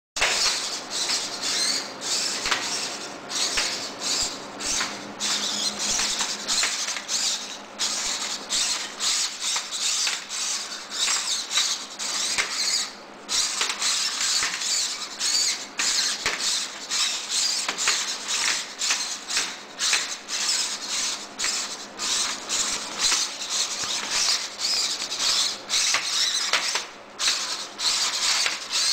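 Bioloid spider robot's servo motors whirring, with its plastic feet and leg brackets scraping and clicking on carpet in an irregular, jerky rhythm as it makes uncoordinated, untrained crawling movements.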